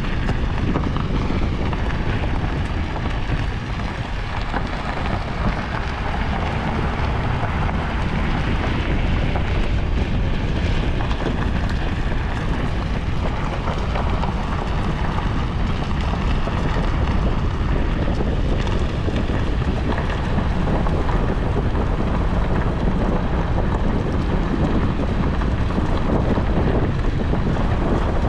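Vehicle driving slowly, a steady rumble of engine and road noise with wind buffeting the microphone.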